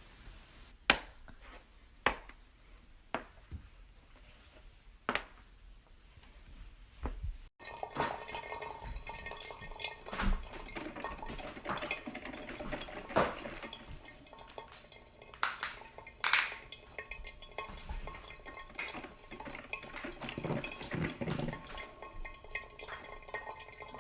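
Joints cracking: sharp single pops about a second apart, five in the first seven seconds. After a cut, more pops and small clicks over a faint steady background noise.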